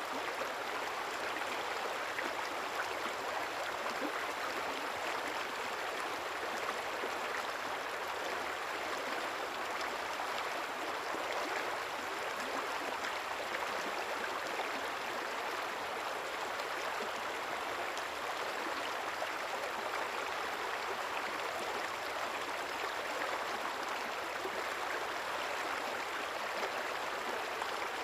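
Small river flowing steadily, a continuous even rush of water.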